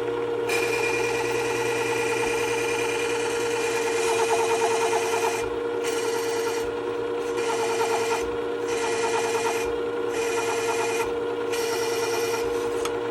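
Work Sharp WS3000 sharpener's motor running steadily while a hand plane blade is ground on its spinning abrasive glass platen. The grinding hiss starts about half a second in and breaks off briefly about five times in the second half.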